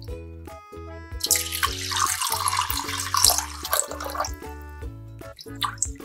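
Water pouring into a bowl of raw rice for about three seconds, then a few splashes as a hand swishes the rice to rinse it, over background music with a steady beat.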